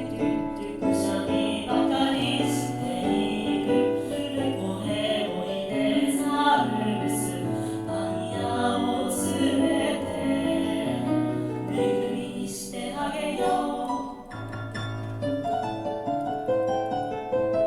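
A single singer's overdubbed choir sings a song in several voice parts over piano accompaniment. About fourteen seconds in, the voices stop and the piano plays on alone.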